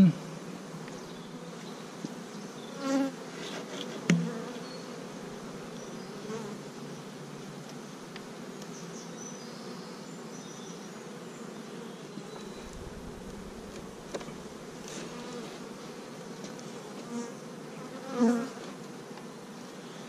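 Honeybee colony buzzing steadily around the open hive as it is closed up, with a few brief louder moments, one a sharp knock about four seconds in.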